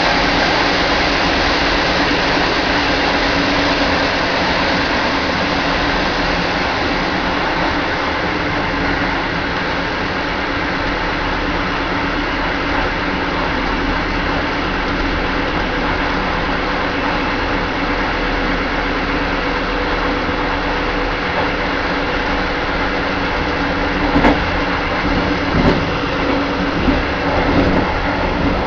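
Running noise of a moving passenger train heard inside its last carriage: a steady rumble and hiss from the wheels on the rails. Near the end a few irregular knocks come in as the wheels run over the track.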